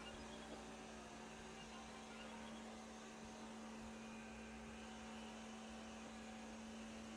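Faint, steady low hum at one even pitch over a light hiss.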